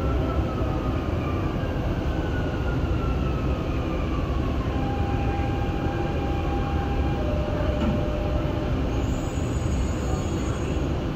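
Dubai Metro train heard from inside the car as it slows into a station: a steady low rumble under an electric motor whine that falls in pitch, then settles into a couple of short steady tones as the train comes to a stop.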